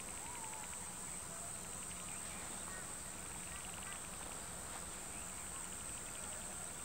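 Steady high-pitched insect drone, joined every second or two by short rapid chirping trills, with a few faint bird calls.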